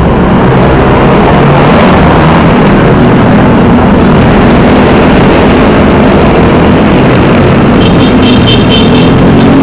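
Loud, steady rushing noise with a low hum beneath it, typical of wind and road noise on the camera microphone of a moving bike. A short run of fast, high ticks comes near the end.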